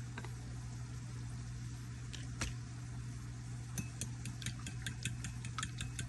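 A utensil clicking rapidly against a dish, about five strokes a second from a little past halfway, as eggs are beaten for scrambling; two single clinks come before it, and a steady low hum runs underneath.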